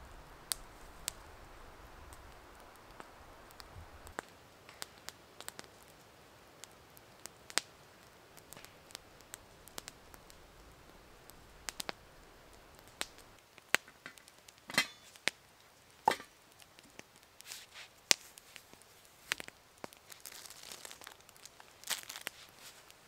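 Log campfire crackling, with irregular sharp pops and snaps from the burning wood, a few much louder than the rest.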